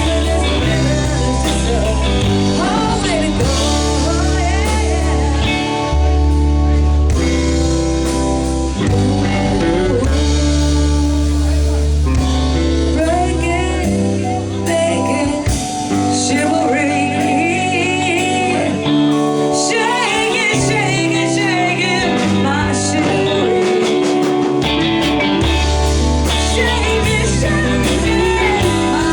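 Live blues-rock band playing, with singing, electric guitar, bass and drums.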